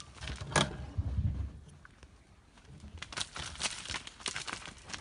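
Dry leaves and twigs crackling and snapping under animals' feet moving through dry undergrowth, in irregular clusters of sharp snaps with a brief low rumble about a second in.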